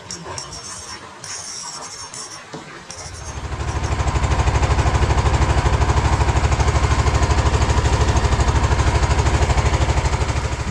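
Small boat engine coming up to speed about three seconds in, then running steadily with a fast, even throbbing pulse.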